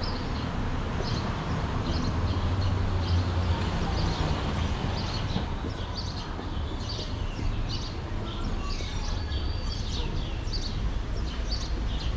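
Many small birds chirping over a steady low rumble of city traffic, the rumble swelling a couple of seconds in.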